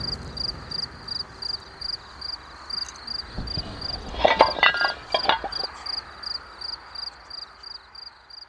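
Cricket chirping steadily, about three chirps a second. About four seconds in comes a quick run of ringing clinks and knocks: horseshoes falling together onto the grass.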